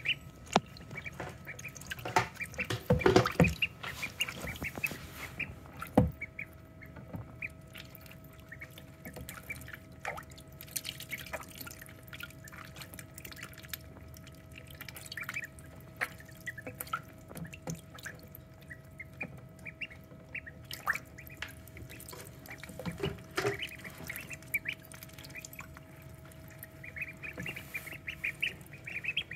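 Ducklings peeping and splashing in a shallow tray of water, with scattered sharp clicks and splashes, busiest a few seconds in; the peeping is thickest at the start and end. A faint steady hum runs underneath.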